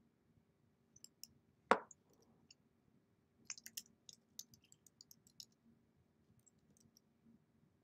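Faint, scattered clicks of someone working at a computer: one louder click a little under two seconds in, then a quick run of small clicks in the middle, over a faint steady low hum.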